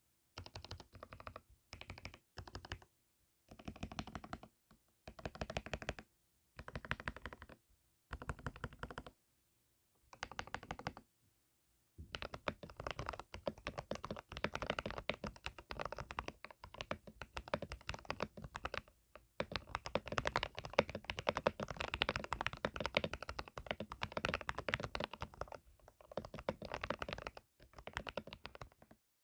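Mechanical keyboard with an E-Yooso Z11 case, Gateron Milky Yellow linear switches and cheap retro Mac-style keycaps being typed on: short bursts of keystrokes with pauses for about the first twelve seconds, then fast, nearly continuous typing that stops just before the end.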